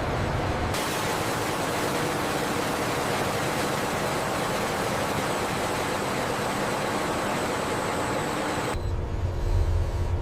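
Steady factory machinery noise: an even hiss that cuts over about nine seconds in to a low rumble with faint steady hums.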